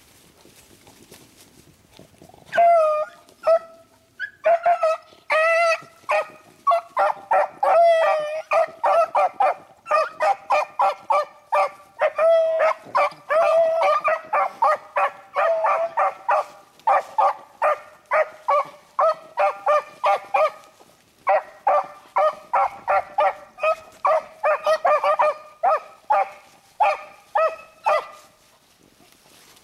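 Beagles baying on a rabbit's scent trail: a dense run of short, ringing barks, several a second, starting about two and a half seconds in and going on with one short pause.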